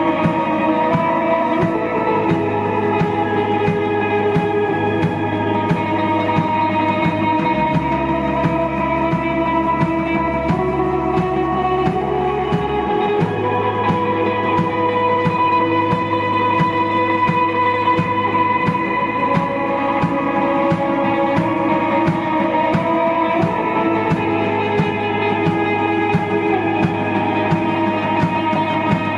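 Rock band playing an instrumental passage: sustained guitar notes over a bass line that shifts every few seconds, with a steady drum beat.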